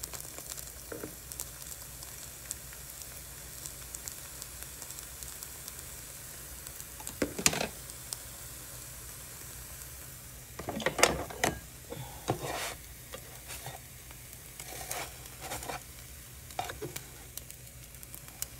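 Spinach wrap batter sizzling in a hot frying pan: a steady hiss with fine crackling, and a few louder knocks scattered through the middle and latter part.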